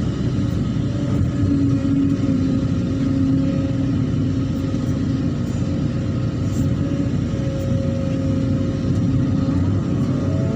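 Excavator's diesel engine running steadily under working load, its pitch sagging and recovering slightly.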